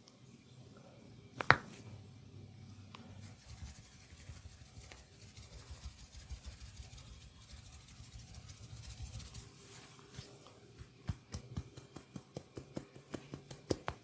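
Hands working on a body during a massage: one sharp crack about one and a half seconds in, then soft rhythmic rubbing and patting on skin, and near the end a quick run of light clicks, several a second.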